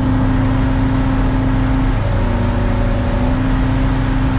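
Boat engine running steadily under way. Its tone dips slightly about halfway through, then comes back.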